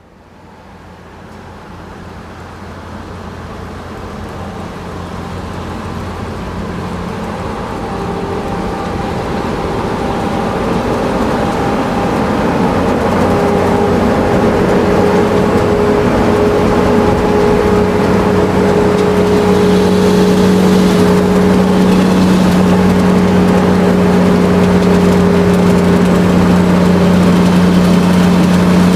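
Large truck's engine running as it drives, a steady low hum with road noise, growing louder over the first dozen seconds and then holding steady.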